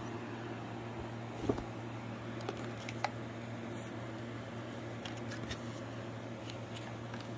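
Steady low hum of room noise, with a few faint light taps and rustles as a paper tag and card are handled and dropped into a cardboard box.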